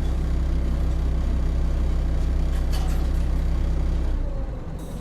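Diesel engine of a Hino Rainbow HR city bus idling, heard from inside the bus: a steady low hum. About four seconds in, the engine note drops away and the sound turns quieter, with a few faint clicks just before.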